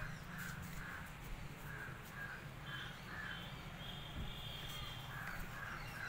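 Crows cawing in short repeated calls that come in a few runs, over a low steady rumble.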